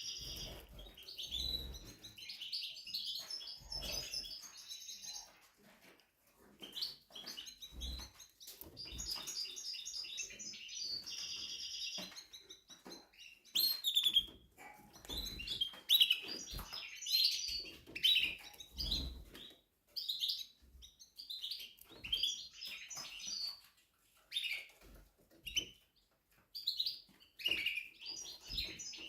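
Timbrado Español song canary singing in long phrases of rapid trills and chirps, with a short break about six seconds in. A few soft low thumps come between phrases.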